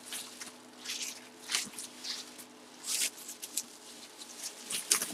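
Plastic bubble wrap rustling and crinkling in short irregular bursts as it is handled and pulled off a football helmet.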